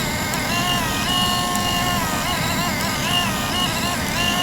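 Small thermal report printer of a Testo 330 combustion analyser printing, its paper-feed motor whining in a set of tones that step up and down in pitch every half second or so, over a steady low rumble.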